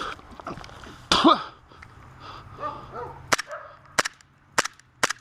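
Blowback airsoft pistol firing a string of five sharp shots, roughly one every half second, in the last two seconds. About a second in, the shooter lets out a loud voiced cry that falls in pitch.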